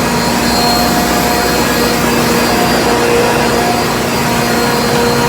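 Ammonia refrigeration compressors running in a trawler's reefer plant, three of them on at once. The sound is a loud, steady machinery drone: several hum tones held over a broad hiss, unchanging throughout.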